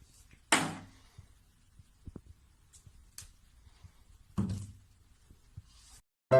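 Two dull thuds about four seconds apart, with faint clicks and taps between them. A short dead silence follows, then piano music starts at the very end.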